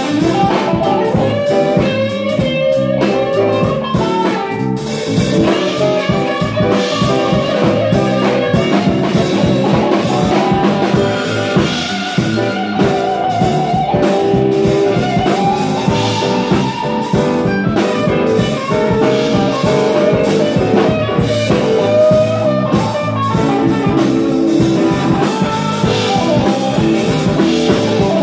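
Live band playing an instrumental passage of a blues/jazz-tinged pop song: an electric guitar leads over electric bass, keyboard and drum kit.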